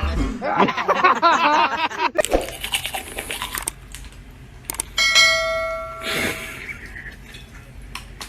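A bell-like ding about five seconds in that rings for over a second. It follows a wavering, high-pitched cry near the start and some scattered knocks.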